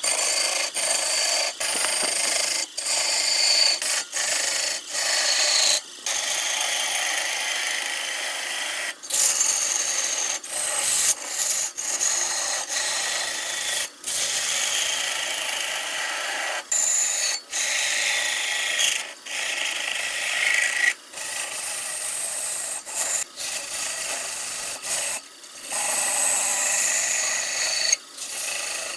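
A hand-held turning tool cutting into a large block of red wood spinning on a lathe: a continuous scraping cut, broken by many short pauses where the cut stops, with faint high tones drifting in pitch.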